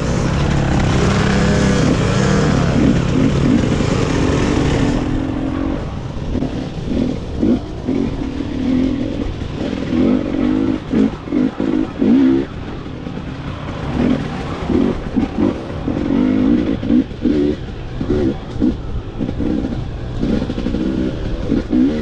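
Dirt bike engines running and revving for the first few seconds. Then one dirt bike engine revs in short, repeated bursts of throttle, about one a second, as it works along a rough, rutted forest trail.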